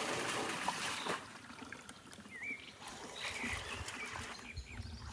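Pump-fed garden fountain with water flowing steadily, then cutting off abruptly about a second in as the pumps are switched off, leaving a faint trickle.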